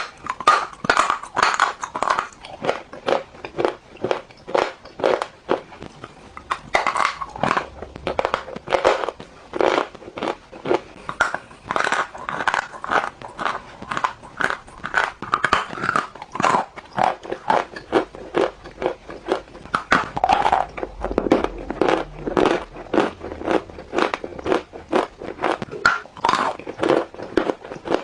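Crunchy food being bitten and chewed close up: a steady run of crisp crunches, about two to three a second.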